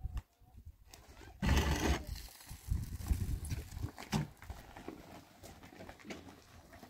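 Loaded metal wheelbarrow rattling and bumping as it is pushed over rough dirt ground, in irregular clatters, the loudest about a second and a half in.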